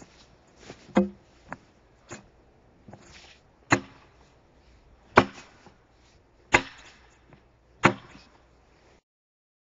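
Axe blows chopping into an oak log as a railroad tie is hewn by hand: five heavy chops roughly a second and a half apart, with a few lighter knocks between the first ones. The sound cuts off abruptly near the end.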